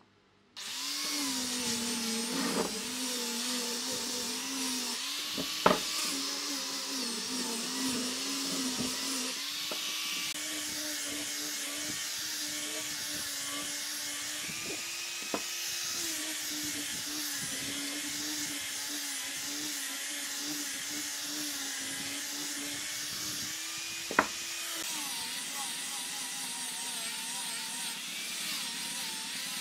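Angle grinder fitted with a sanding disc running and sanding a curved wooden piece, a steady motor whine whose pitch sags and recovers slightly as the disc is pressed against the wood. Two sharp clicks cut through it, a few seconds in and again near the end.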